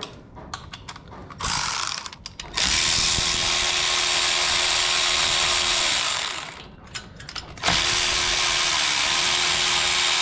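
Air ratchet running in two long pulls of about three and a half seconds each, with a short burst before them, a steady hissing whir, backing the bolt out of an LS valve spring compressor once the keepers are in. A few light clicks of the tool being handled come first.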